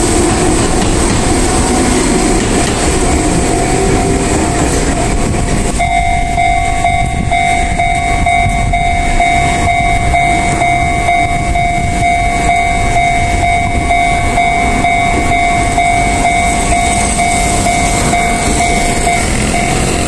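An Enoshima Electric Railway train rolls past a level crossing. About six seconds in, the sound switches to a Japanese level-crossing alarm ringing: a steady electronic tone with a higher ding repeating about once a second while the barriers are down.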